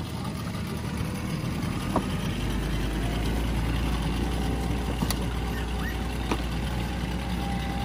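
Small outboard motors running on inflatable boats, a steady engine drone that grows deeper and stronger about two and a half seconds in. A few sharp clicks are heard over it.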